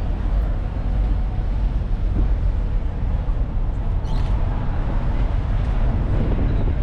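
Ferry under way: a steady, low engine rumble with an even rushing noise above it.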